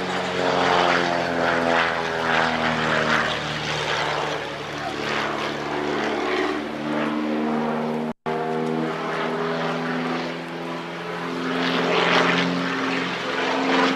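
Piston engine and propeller of a small aerobatic biplane flying a smoke-trailing display, its engine note rising and falling in pitch as it climbs and rolls. The sound cuts out for an instant about eight seconds in.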